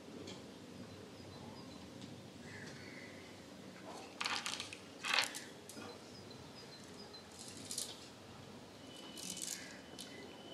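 Quiet room ambience with faint, repeated bird chirps and a few short clinking rattles, the loudest about five seconds in.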